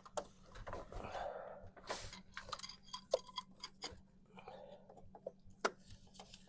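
Scattered metallic clicks, taps and short scrapes of a distributor and hand tools being worked into a 4.3L Vortec V6, trying to seat the distributor shaft onto the oil pump drive. A faint steady hum sits underneath.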